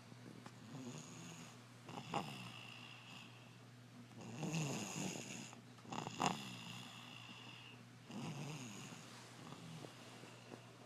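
A two-year-old child snoring heavily in sleep, with about four snoring breaths. Two of them, about 2 seconds and 6 seconds in, end in a sharper, louder snore.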